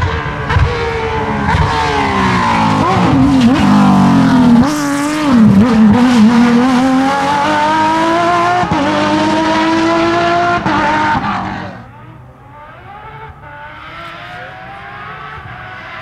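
Porsche 997 GT3 rally car's flat-six engine at full throttle, its note falling, dipping briefly about five seconds in, then climbing steadily under hard acceleration. About twelve seconds in it drops sharply to a faint, distant engine sound.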